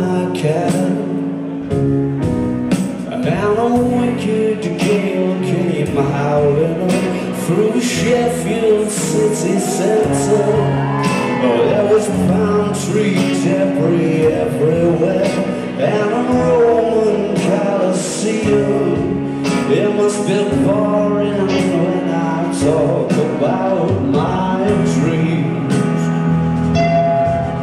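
Rock band playing live: a male voice singing over electric guitars and drums, with regular cymbal strikes.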